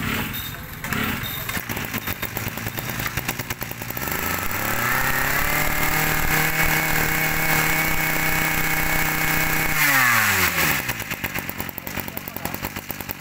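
Grip 235 23cc two-stroke brush cutter engine idling unevenly, then revved up about four seconds in and held at high revs for about five seconds, before dropping quickly back to idle near ten seconds.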